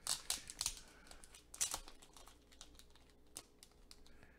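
A trading card in a soft plastic penny sleeve being slid out of a rigid plastic top loader: light plastic clicks and crinkling, busiest in the first two seconds and sparser after.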